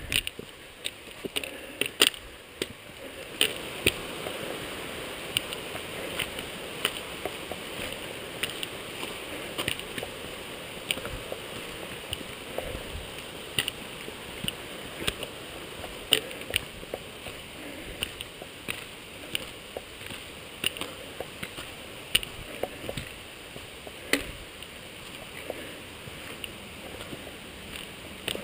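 Hikers' footsteps and walking-stick taps on a rocky trail, sharp knocks about once a second, over the steady rush of a stream.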